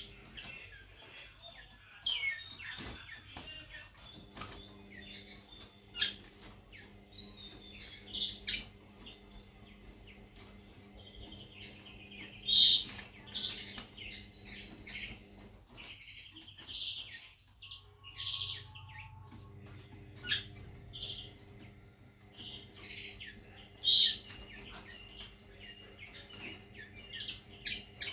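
Common linnet giving scattered chirps and short twittering phrases, with a steady low hum behind that drops out for a few seconds just past the middle.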